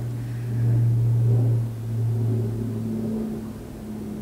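A low rumbling hum that swells for about a second, eases, swells again more faintly and then settles.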